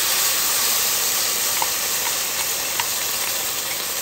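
Tomato sauce sizzling as it is poured onto hot oil and toasted rice in a pot: a steady hiss with a few small pops.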